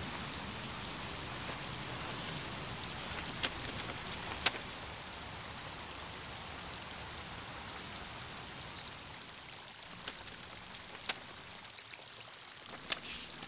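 A paper letter and envelope being handled, giving a few short, sharp crackles, over a steady hiss of outdoor background noise that eases slightly toward the end.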